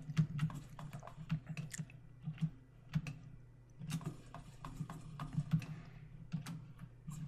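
Computer keyboard keys being pressed in irregular clicks, a few every second, during work at a computer.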